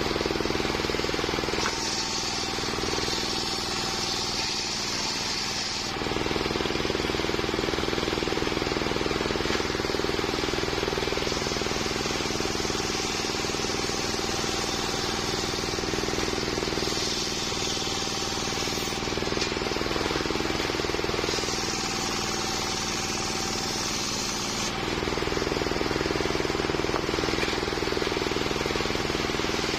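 Homemade circular sawmill rig running steadily while its blade rips waru (sea hibiscus) wood into boards. A higher cutting sound comes in three times: about two seconds in for some four seconds, and twice more in the second half.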